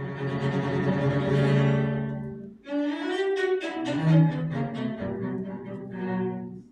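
Cello and double bass playing together with the bow in long held notes. The music breaks off briefly about two and a half seconds in, resumes with a new phrase, and stops for a moment at the very end.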